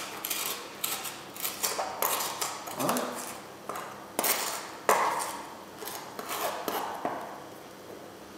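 Kitchen clatter: a knife and metal utensils knocking, scraping and clinking against a cutting board and a pan, in a string of irregular sharp knocks.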